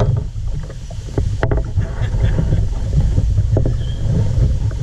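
A fishing kayak's hull bumping and knocking as the angler moves about on it: a low rumble with a few sharp knocks, one about a second and a half in and another a couple of seconds later.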